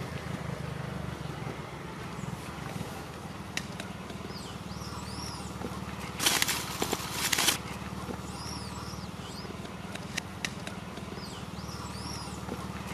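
Outdoor ambience: a steady low hum, a few faint high chirps repeating every few seconds, scattered clicks, and a louder burst of rustling noise about halfway through.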